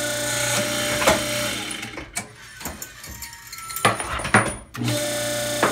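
Hose crimping machine running with a steady hum, crimping fittings onto braided PTFE hose. The hum cuts out about two seconds in, leaving a few sharp metallic clicks and knocks as hoses and fittings are handled, then starts again near the end.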